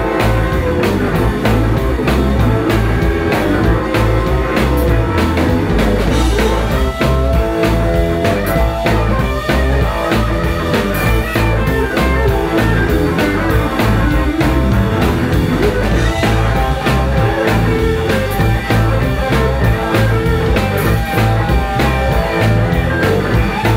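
Live blues-rock band playing: two electric guitars over electric bass and drum kit, with a steady, loud drum beat.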